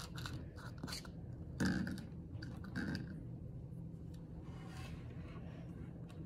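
Small objects handled on a desk: a few light knocks and short rustles in the first three seconds, the loudest about a second and a half in, then faint scraping and rubbing.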